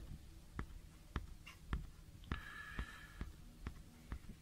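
Faint handling noise: a string of light clicks and taps, about two a second, as a hand turns a telescope eyepiece in its fingers.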